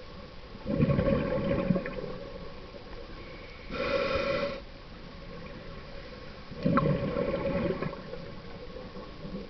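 A scuba diver breathing through a regulator: two long gurgling rushes of exhaled bubbles, with one shorter hissing inhalation through the regulator between them, in a slow steady rhythm.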